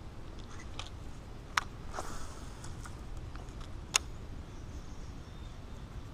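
Sharp clicks over a low steady rumble. The two loudest come about one and a half and four seconds in, with a few fainter ones between.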